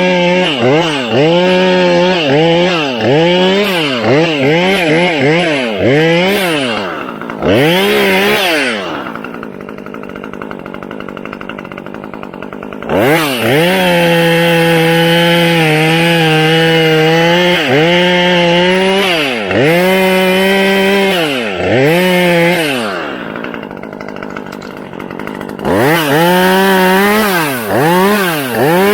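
Husqvarna T540 XP top-handle two-stroke chainsaw cutting wood, its engine revved up and down in quick throttle blips and held at full speed through long cuts. It drops back to a quieter idle twice, about nine seconds in and again near twenty-three seconds.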